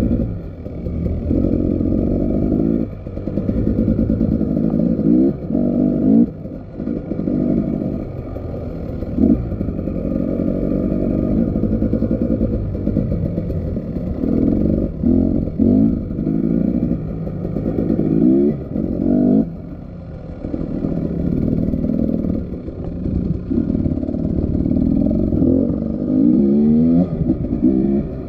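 Motorcycle engine running under changing throttle, the revs dropping briefly and climbing again several times.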